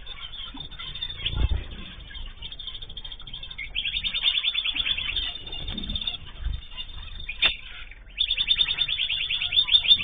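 Small pet cage birds chirping together, with two long trills of fast, evenly repeated notes, one about four seconds in and another near the end. A sharp click and a few low thumps come in between.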